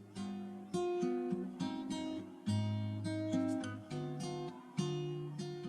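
Acoustic guitar music: chords plucked and strummed, a new chord struck about every second over held bass notes.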